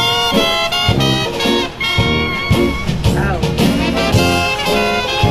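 Background swing-style jazz music with brass horns and a steady beat.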